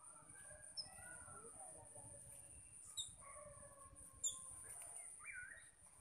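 A flock of ground-feeding birds calling softly to each other: a continuous low chatter of short gliding calls. Three sharp, high chirps cut through it, about one, three and four seconds in.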